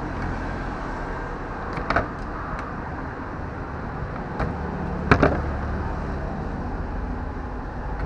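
Diagonal cutting pliers snipping and stripping a washing machine's wire: a few sharp snips about two seconds in and again around five seconds in, over a steady low background rumble.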